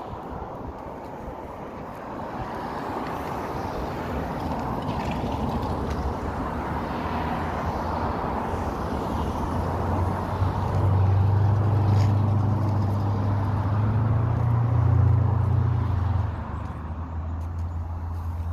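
A motor vehicle's engine drone over outdoor background noise. The drone grows louder for several seconds past the middle, then eases off near the end.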